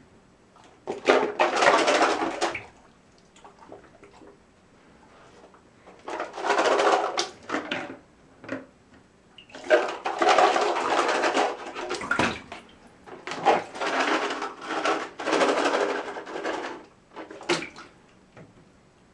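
Bathwater sloshing and splashing in a tub as a golden retriever puppy and a person's hands move through it, in about five bursts of one to three seconds each.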